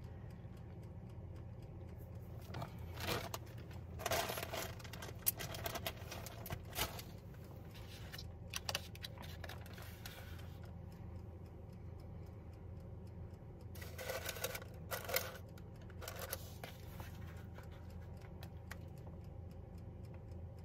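Light handling noises: a plastic bag of shredded cheese rustling, and a paper plate and an air fryer basket being moved, with scattered clicks and scrapes over a steady low hum.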